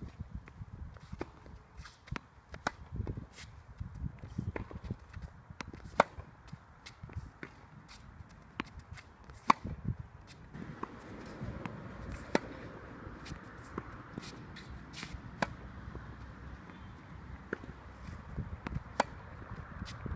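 Tennis balls struck by rackets in a rally: sharp pops of ball on strings roughly every three seconds, with fainter ticks of bounces and shoe steps between. A steady rushing noise comes in about halfway.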